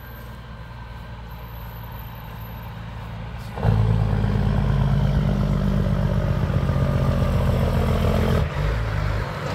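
Diesel engine of a Peterbilt 379 semi grain truck, rumbling lower at first as it comes closer, then suddenly loud and steady as it passes close by about a third of the way in, falling away near the end.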